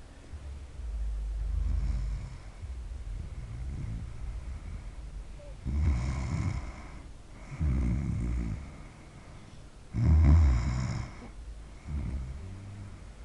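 A woman snoring in her sleep, one snore on roughly every breath about every two seconds, the strongest about ten seconds in.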